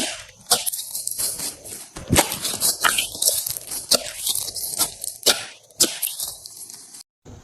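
Slime being squished and worked, giving a crunchy crackle with a sharp pop about once a second. It cuts off suddenly near the end.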